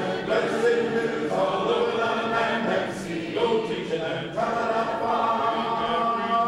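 A church congregation singing a hymn a cappella, many voices in unison and harmony holding long notes, with short breaks between phrases.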